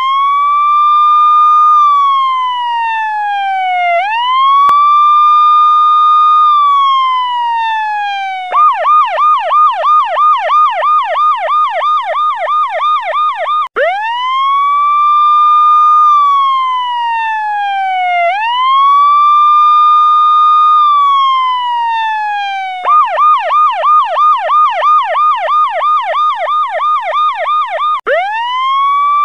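Electronic police-style siren used as a danger alarm, cycling through its patterns: two slow wails, each rising, holding and falling over about four seconds, then a fast yelp sweeping up and down about four times a second for about five seconds, and the same sequence again.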